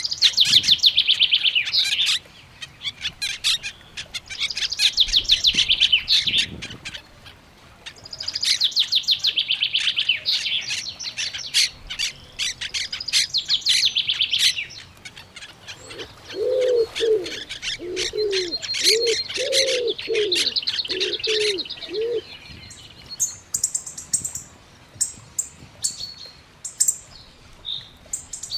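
Wild birds singing: several phrases of fast, high, rapidly repeated notes, each lasting a few seconds. A run of about eight low, hooting notes comes in the middle, and short sharp chirps follow near the end.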